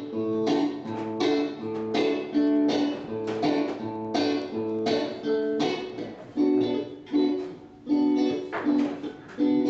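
Acoustic guitar strummed in a quick, jaunty rhythm, several chord strokes a second, playing an instrumental introduction.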